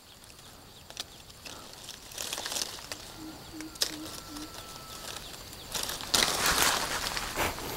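Lychee leaves and twigs rustling as a hand handles a branch, in patches and loudest near the end, with a few small snaps. About halfway through, a faint call of four short low notes sounds in the distance.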